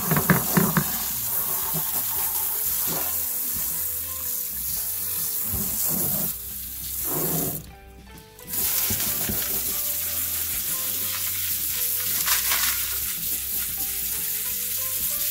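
Water spraying from a sink hose nozzle onto tumbled rocks and ceramic media in a mesh sifting pan, rinsing away the 60/90 coarse-grit slurry. It is a steady hiss with a brief break about eight seconds in, and stones clatter as they are handled near the start.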